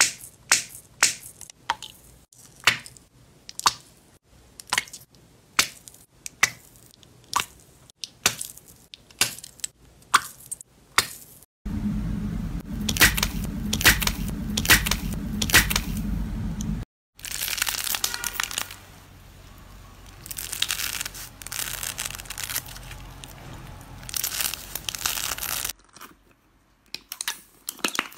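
Hands squeezing slime and slime-filled toys: a run of sharp crackling pops about twice a second as small water-filled plastic bags are pressed. Then come louder crackling and tearing as a glitter-coated skin is crushed and peeled off a squishy ball, with a low hum behind it, and then a long stretch of crinkling and crackling.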